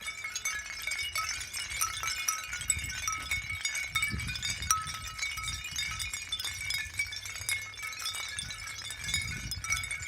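Glass clinking and tinkling without a break: many short, bright pings and clicks from small glass pieces jostled together, with faint low rumble of handling underneath.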